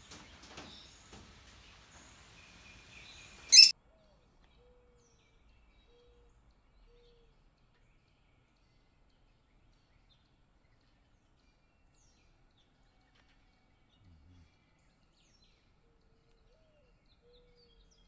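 Ringneck parakeets chattering and squeaking, ending in one loud, sharp squawk a few seconds in. Then near silence with a few faint, low coos of a mourning dove, a short run after the squawk and again near the end.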